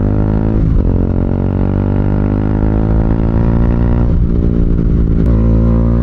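Single-cylinder engine of a Bajaj Dominar UG2 running loudly through a Two Brothers slip-on exhaust while riding, with a deep, bassy rather than crackly note. The engine note dips briefly about a second in and again about four seconds in, then holds steady.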